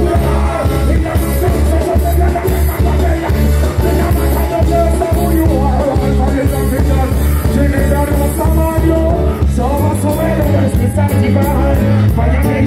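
Live reggae band playing with heavy bass and drums, a male vocalist singing over it.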